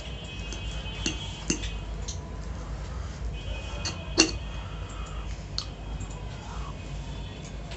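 A metal fork clinking against a ceramic plate as it spears pasta: a few sharp clinks, the loudest about four seconds in. Under it runs a steady low hum, with a faint high whine that comes and goes.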